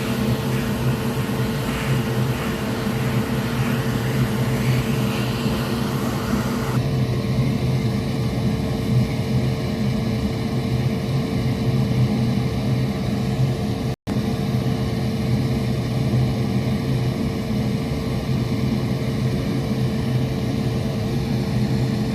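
Steady whirring hum of a fan or small motor with a low drone under it. The sound changes slightly about seven seconds in and drops out for an instant about halfway through.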